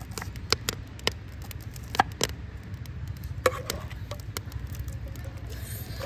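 A metal spoon clinking and scraping against an aluminium pot as onions, peanuts and turmeric are stirred in hot oil, with a handful of sharp clinks, the loudest about two and three and a half seconds in, over a steady low rumble.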